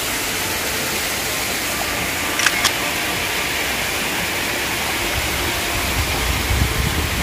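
Steady rushing noise with no clear source, broken by two short clicks a fraction of a second apart about two and a half seconds in; a low rumble comes up for the last couple of seconds.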